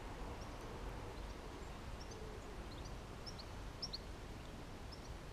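Small birds chirping: scattered short, high calls over a steady low outdoor background noise.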